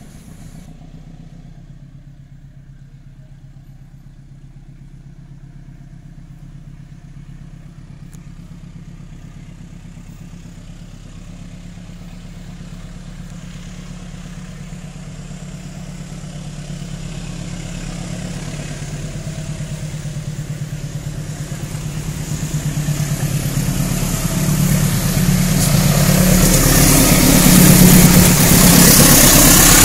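GE CC 201 diesel-electric locomotive approaching and passing at the head of a container freight train: a steady engine drone that grows gradually louder over the whole stretch and is loudest near the end, as the locomotive draws level, with rising rail and wheel noise.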